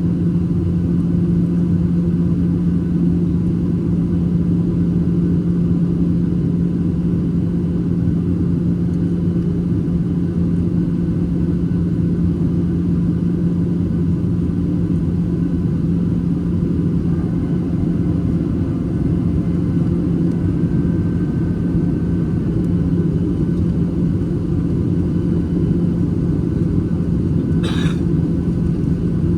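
Steady cabin noise inside a Boeing 737-800 in flight: its CFM56-7B engines and the airflow make a constant low drone with a strong hum. A single brief click comes near the end.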